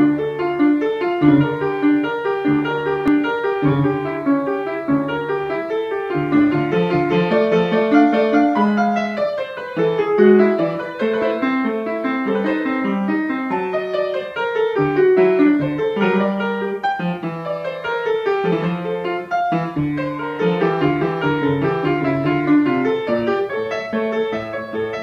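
Solo piano played with both hands: a continuous stream of notes with a low accompaniment under a melody, and a few quick descending runs partway through.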